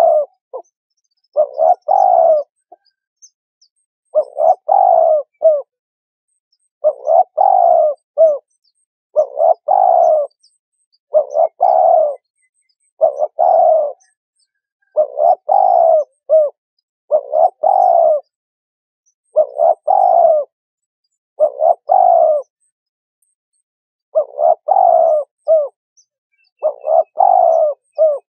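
Spotted dove cooing: a short phrase of several low notes, repeated about every two seconds with clean silence between phrases.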